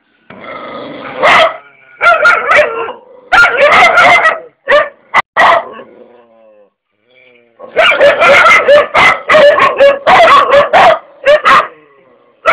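A dog barking and yipping in rapid bursts. The barking stops for about a second and a half just past the middle, then comes back as a long, dense run of barks.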